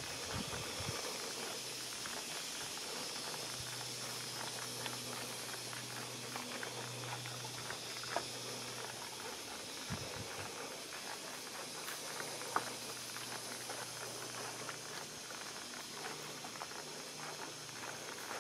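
Footsteps walking along a sandy, leaf-littered trail, with a couple of sharper snaps about eight and twelve seconds in, over a steady high hiss.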